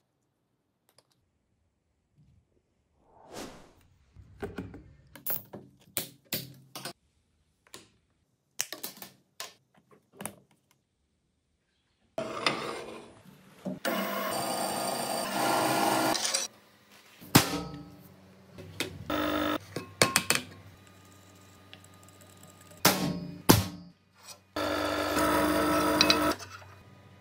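Clicks and knocks of parts being fitted by hand, then a power tool running in several loud steady spells broken by knocks. Near the end a drill press bores through aluminium plate.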